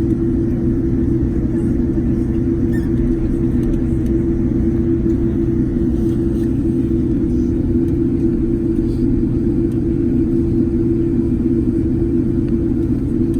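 Boeing 787-10 airliner around its takeoff: a steady low rumble with a constant hum that holds even in level throughout.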